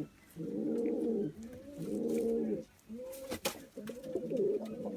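Pet doves cooing: about four low, drawn-out coos, each roughly a second long, with short breaks between them. This is courtship cooing among young birds pairing up.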